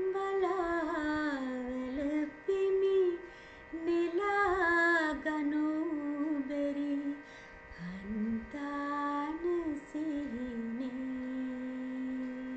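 A woman singing a slow melody without words, in phrases of long held notes with gliding ornaments, over a steady drone; the last note is held for several seconds near the end.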